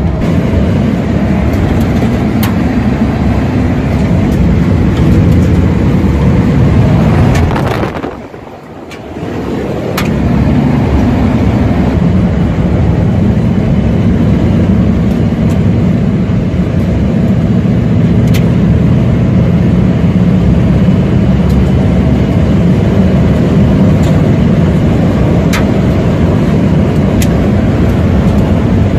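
1971 Chevrolet C10 pickup's small-block 350 V8 running steadily while the truck is driven, heard from inside the cab as a loud low rumble. The sound drops away sharply for about a second, eight seconds in, then comes back.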